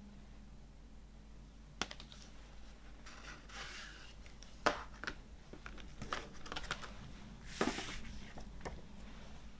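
Hands handling a CD album package: sharp clicks and taps, with bouts of rustling and scraping in between and a longer scrape near the end.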